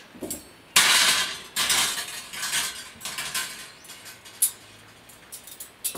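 Heavy-gauge wire oven rack being taken apart: the metal shelves and frame rattle and clink against each other as they are handled and folded. The clattering is densest about a second in and lasts a couple of seconds, followed by lighter clicks and one sharp click a little past the middle.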